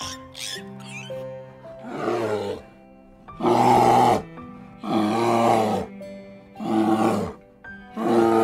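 Young brown bear calling in loud, rough cries, each under a second long, repeated about every one and a half seconds from about two seconds in, over soft background music with held notes.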